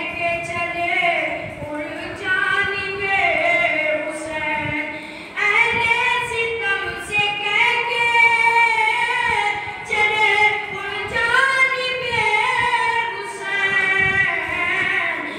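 A boy chanting a noha, an unaccompanied Shia mourning lament, into a microphone in long melodic phrases, with a short break about five seconds in.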